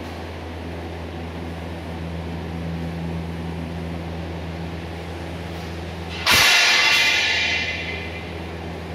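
A steady low machine hum, with a sudden loud burst of hissing noise about six seconds in that fades away over a second and a half.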